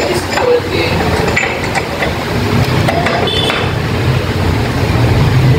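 Short metallic clinks and taps as a Yamaha NMAX scooter's rear gear case is handled and fitted into place by hand, over a steady low hum that builds about halfway through.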